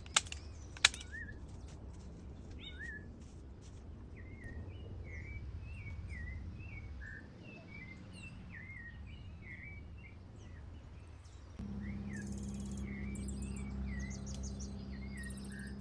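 A bird calling over and over in short, quick chirps. There are two sharp clicks near the start. About three quarters of the way in, a steady low hum and a high, rapid insect-like chirping join in.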